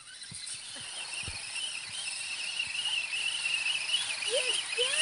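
Electric motor whine of a radio-controlled 4x4 truck, high-pitched and wavering slightly, growing steadily louder as it drives closer.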